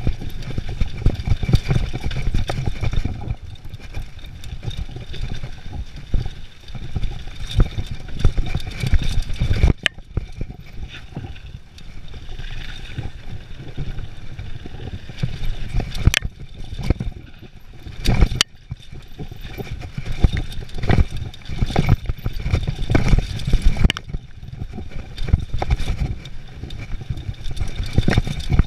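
Mountain bike descending a dirt singletrack at speed, with wind rushing over the camera microphone and the bike rattling and clattering over roots and bumps. Tyres run on dirt and, about halfway, across a wooden bridge. A few sharp knocks come from hard hits.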